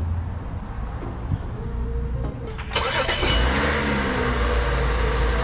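BMW X5 E70 engine being started: a short burst of cranking about two and a half seconds in catches into a steady idle, after a few light clicks.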